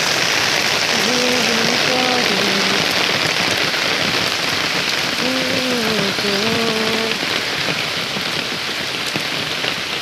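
Heavy rain falling steadily on a dirt lane, trees and foliage: a dense, even hiss of drops that eases slightly near the end. Twice, briefly, a distant pitched call sounds through the rain.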